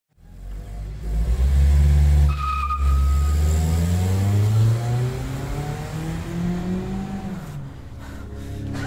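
Car engine accelerating, its pitch rising steadily for about five seconds before easing off, with a short high squeal about two and a half seconds in.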